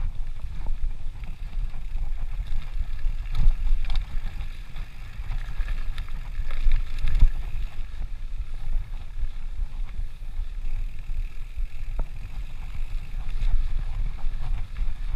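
Mountain bike rolling down a dirt forest trail, with wind rumbling on the camera's microphone, tyres running over dirt and leaves, and scattered knocks and rattles from the bike over bumps.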